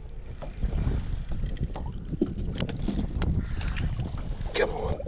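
Wind buffeting the microphone, with water lapping against a small boat's hull and scattered light clicks.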